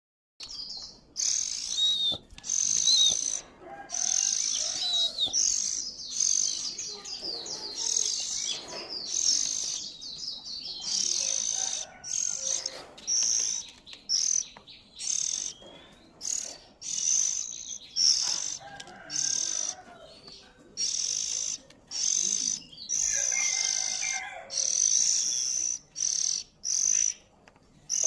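Young oriental magpie-robin begging for food: a long run of high, harsh calls, each about half a second to a second long, repeated over and over with short gaps.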